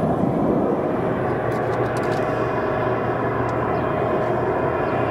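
Jet airliner engines running, a steady loud rush with a faint whine that comes up about two seconds in.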